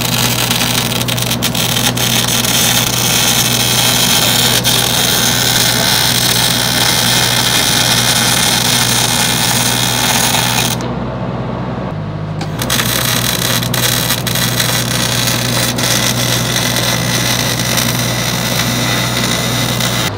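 Electric arc welding on a steel tube frame: a steady crackling hiss from the arc over a constant low hum. The arc breaks off for about two seconds midway, then strikes again and runs on.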